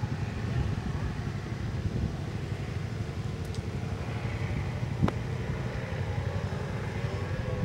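A vehicle engine idling steadily with a low rumble. There is a single sharp click about five seconds in.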